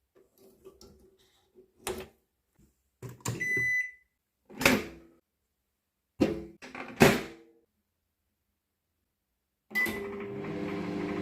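Microwave oven being worked: small clicks, a keypad beep, and a few heavy clunks of the door. Near the end it beeps again and starts running with a steady electrical hum.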